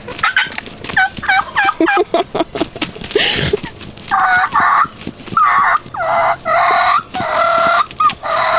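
Wild turkeys calling: first a quick run of short, falling notes, then from about four seconds in a string of longer, raspy squawks, roughly two a second.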